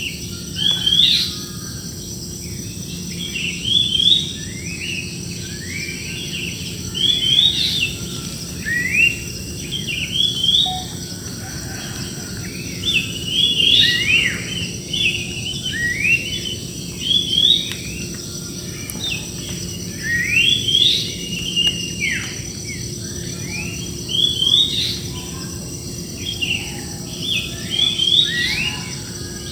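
Small birds chirping in a busy chorus of short rising notes, in clusters every second or two, over a constant high-pitched insect drone.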